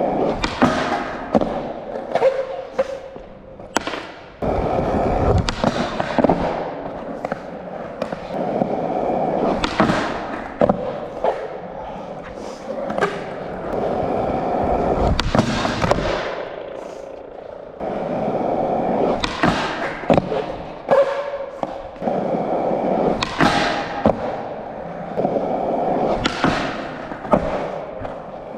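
Skateboard wheels rolling on concrete in several runs of a few seconds each, broken by sharp clacks and thuds as the board pops, strikes a bench edge and lands.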